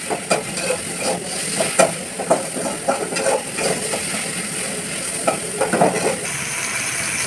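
A metal spoon stirring and scraping in a wok, with irregular clicks against the pan over the steady sizzle of onions and tomatoes frying in oil. The stirring stops about six seconds in, leaving the sizzle.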